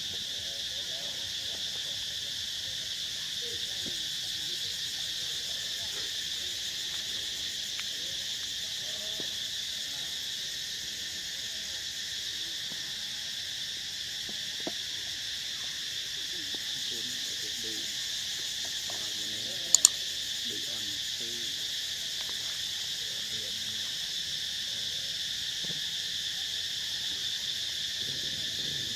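Steady high-pitched drone of a forest insect chorus, unbroken throughout. About twenty seconds in there is a sharp double click, the loudest sound.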